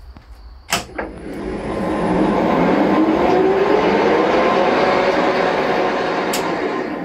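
Metal lathe spindle and headstock gearbox, driven through a 4 kW Chinese vector frequency inverter, switched on from the apron lever with a couple of clicks. It runs up with a rising whine over a few seconds and then runs steadily. After another click near the end it begins to wind down.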